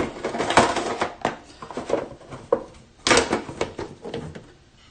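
Trading cards being gathered and handled on a table: a run of clicks, taps and rustles that dies away after about four seconds.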